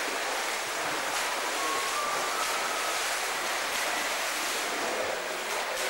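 Swimmers splashing in an indoor pool: a steady rushing wash of water, echoing in the pool hall, with faint short calls in the background.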